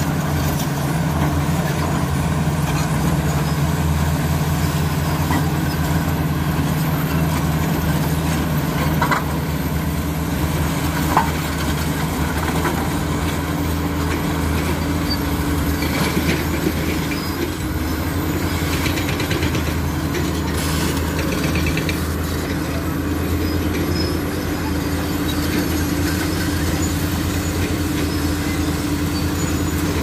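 Komatsu D85SS crawler bulldozer's diesel engine running steadily as the dozer pushes rock and soil, its note shifting a little partway through. A couple of sharp knocks come around the middle.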